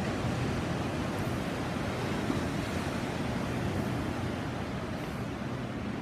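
Caribbean sea surf washing steadily onto the shore.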